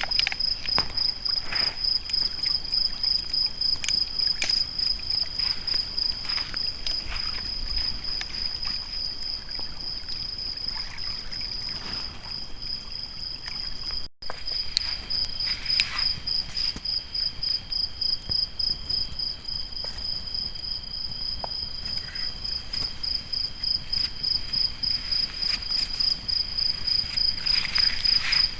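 Crickets trilling steadily at night, a continuous high rapid pulsing, with scattered crackles from a campfire. The sound drops out for an instant about halfway through.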